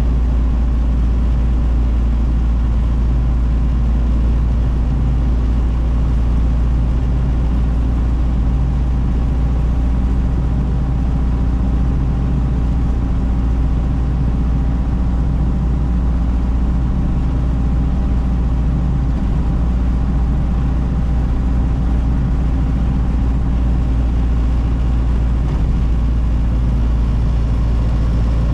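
1932 Ford Model B's four-cylinder flathead engine running at a steady cruise, heard from inside the cabin with road noise and a deep, steady rumble.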